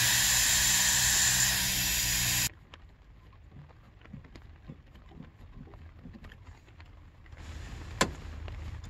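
Factory pressure charge of air hissing out of a mini-split head unit's refrigerant fitting as the flare nut is loosened. The hiss cuts off suddenly about two and a half seconds in, followed by faint clicks of the brass fittings being handled and a sharper click near the end.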